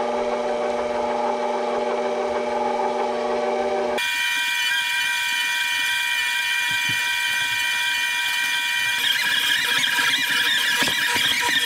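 KitchenAid stand mixer motor running at stir speed, with the dough hook turning through flour and water. About four seconds in, the footage is sped up fourfold, and the steady hum jumps abruptly to a high-pitched whine.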